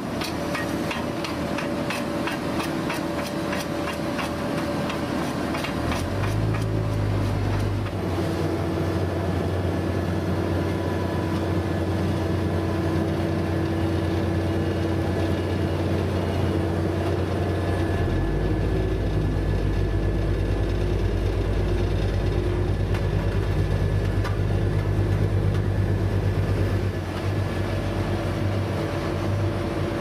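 Vögele asphalt paver running at work: a steady diesel and hydraulic drone with a rapid, regular knocking for the first several seconds. A heavier low rumble comes in from a little past halfway.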